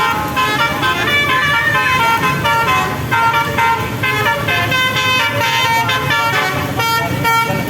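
A bus's basuri musical air horn (telolet horn) playing a quick tune of stepped notes over the rumble of the passing bus.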